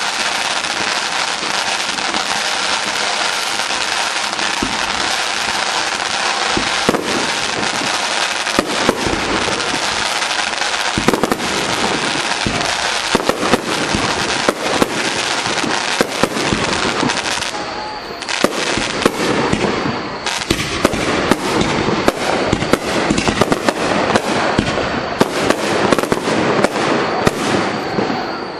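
Fireworks display: a dense crackling hiss for the first several seconds, then shells bursting in a fast run of sharp bangs that gets denser from about eleven seconds in.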